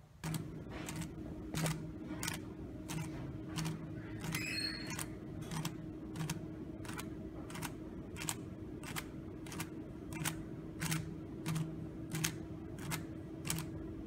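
Stepper motors of an Arduino-driven Rubik's Cube solver turning the cube's faces: a quick series of sharp clacks, about two a second and coming faster toward the end, over a steady hum.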